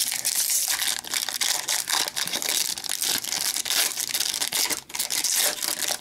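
Wrapper of a hockey card pack being torn open and crinkled by hand: a dense, continuous crackle of many small sharp crinkles.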